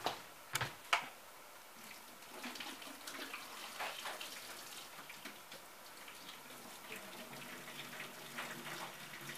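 Water being poured off a bowl of scalded onion husks, heard faintly as running and splashing, after a few sharp knocks in the first second.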